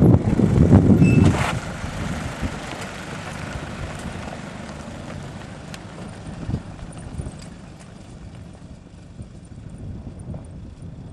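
Nissan Patrol four-wheel drive towing a camper trailer drives past on a dirt track. It is loud for the first second or so, then fades steadily as it pulls away.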